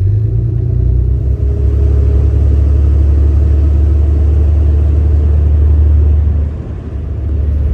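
Cummins diesel pickup engine pulling under load, heard from inside the cab as a loud, deep drone that eases off about six and a half seconds in.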